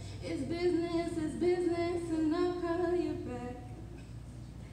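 A woman singing unaccompanied, with drawn-out notes that end about three and a half seconds in.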